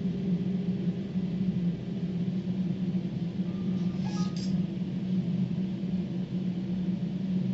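CNC router running steadily while engraving MDF, a constant hum with two brief higher ticks about four seconds in.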